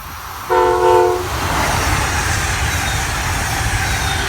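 Amtrak train horn from the leading Metroliner cab car sounds one short chord blast about half a second in, a courtesy answer to a railfan's up-and-down arm signal. After it, the train rushes past at speed with a loud, steady noise of wheels and wind.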